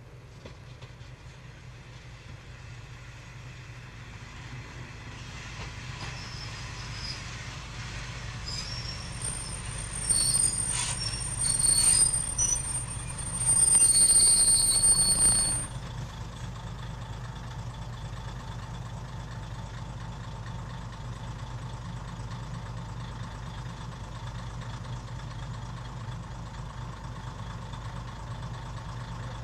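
KiHa 202 diesel railcar pulling in and growing louder, then squealing high-pitched from its brakes and wheels for about six seconds as it slows. The squeal cuts off as it stops, and its diesel engine idles steadily after that.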